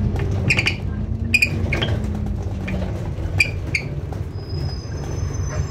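Interior of an ADL Enviro400 MMC double-decker bus slowing for a stop: a steady low drivetrain drone, with a hum that slowly drops in pitch as the bus slows. The cabin rattles and clicks a few times, and a thin high whine sets in near the end.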